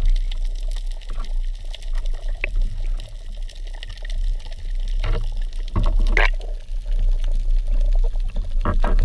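Underwater sound picked up through an action camera's waterproof housing on a speargun: a steady low muffled rush of water with scattered clicks, and a few short bubbling bursts around the middle, as the diver swims up toward the surface.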